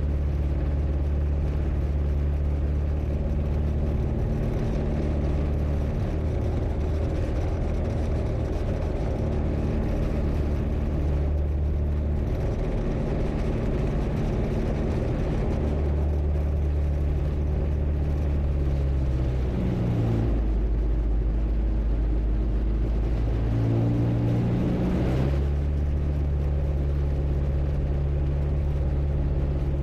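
Rotax 582 two-stroke engine of an X'Air microlight running steadily at low power. The engine speed drops about two-thirds of the way through and picks up again a few seconds later.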